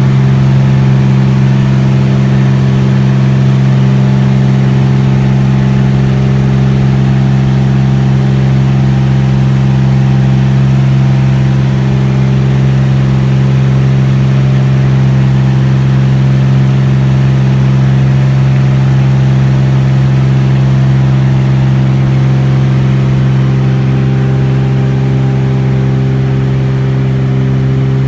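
Beechcraft T-34 Mentor's six-cylinder piston engine and propeller droning at steady power, heard loud and unchanging from on board the aircraft.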